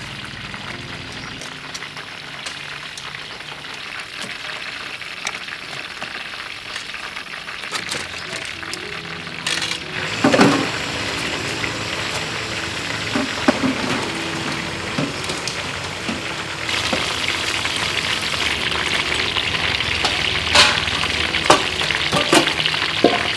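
Flour-coated blue crab pieces deep-frying in hot oil in a wok: a steady sizzle that grows louder a little past two-thirds of the way through, with a few short sharp knocks.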